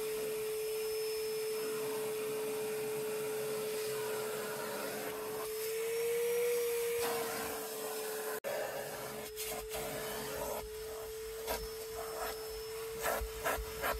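A vacuum motor runs with a steady whine, its pitch rising briefly a little before halfway, then cuts out for an instant. Near the end, quick rubbing strokes join the running motor.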